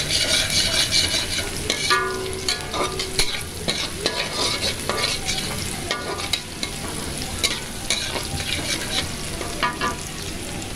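Sliced onions and dried red chillies sizzling in hot oil in a wok, with a spatula repeatedly scraping and stirring them through the pan.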